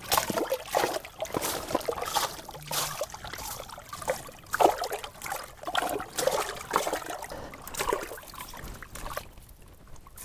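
Water splashing and sloshing in an ice-fishing hole as a small lake trout is pulled up and landed by hand, in irregular splashes and drips.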